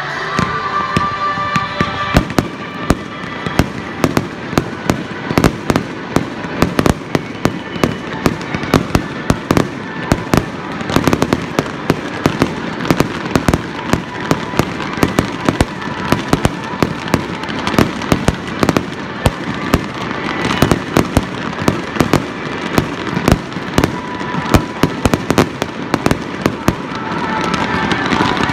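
Aerial fireworks going off in a rapid, continuous string of sharp bangs and crackling pops, with music playing underneath.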